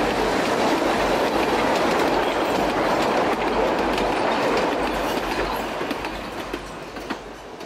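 Wooden narrow-gauge passenger carriages of Puffing Billy rolling past on the track, a steady rumble and rattle with a few sharp wheel clicks. The sound fades away in the last couple of seconds as the final carriage goes by.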